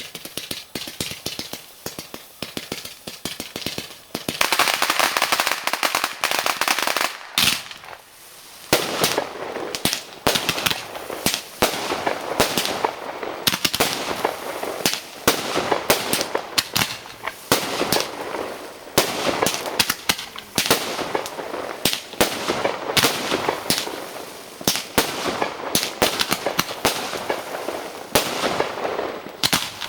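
Fireworks going off: a rapid run of small pops at first, then from about four seconds dense crackling with many sharp bangs in quick succession.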